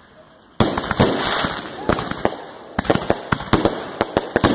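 Aerial fireworks going off. After a brief lull, a rapid string of sharp bangs and dense crackling breaks out about half a second in and keeps going.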